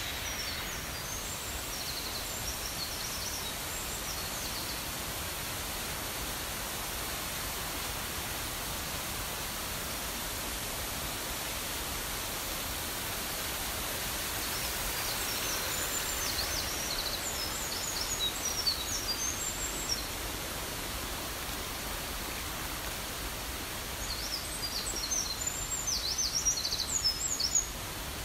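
Mountain stream swollen by the previous day's rain, rushing with a loud, steady noise. Wild birds sing short chirping phrases over it near the start, again about halfway through, and more busily near the end.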